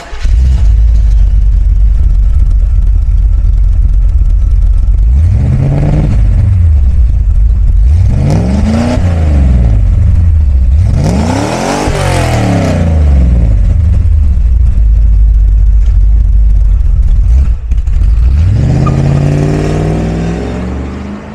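1980 Chevrolet Corvette C3's 350 cu in L82 V8 running through an ANSA exhaust: it idles, is revved up and let fall back three times, the third rev the highest. Near the end it accelerates away, the note rising as it fades into the distance.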